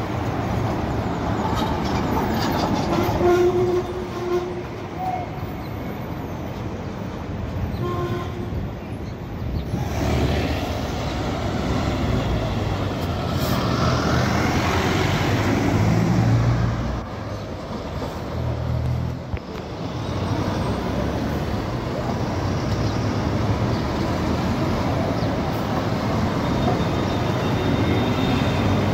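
City bus diesel engines and street traffic passing, loudest about halfway through as a bus pulls past close by with a low engine rumble.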